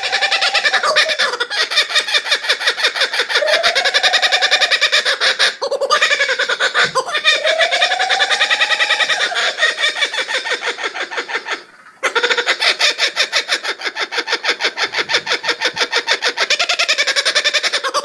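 Laughing kookaburra calling: a long run of rapid chattering notes that rise and fall in pitch, with a brief break about twelve seconds in, played back from a video.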